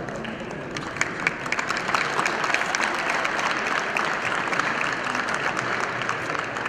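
Seated crowd of many people applauding, a dense patter of hand claps that swells about a second in and keeps going.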